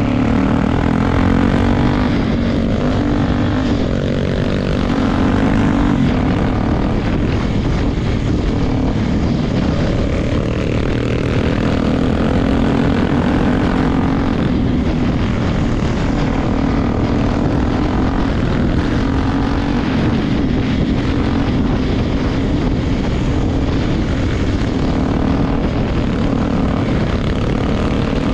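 Honda XR250 Tornado motorcycle's single-cylinder four-stroke engine running steadily while riding, its note wavering slightly up and down.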